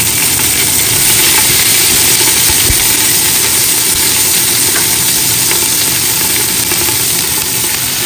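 Lemongrass, shallots, galangal, dried chilies and kaffir lime leaves sizzling steadily in hot oil in a stainless steel wok.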